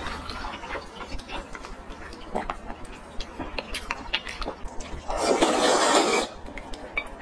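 Close-miked eating of spicy fried noodles: wet chewing and lip smacks with light clicks of chopsticks against the bowl, then one loud slurp of noodles about five seconds in, lasting about a second.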